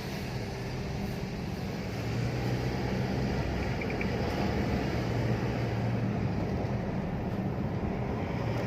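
Isuzu D-Max's 3.0 4JJ3-TCX turbo-diesel running with road noise while driving, a steady low hum that gets a little louder about two seconds in. No brake noise is heard: the front-right hissing has gone after the brakes were cleaned and the loose pad backplate was tightened.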